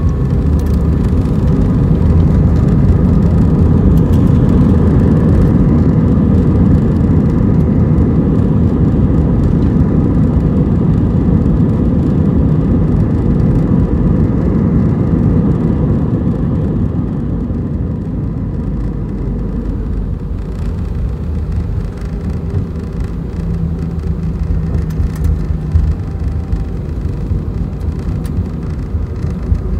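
Airbus A320 with CFM56-5A3 engines on its landing rollout just after touchdown, heard from the cabin over the wing: a loud rumble of engines and wheels on the runway that builds over the first few seconds, then fades as the jet slows. A few knocks near the end.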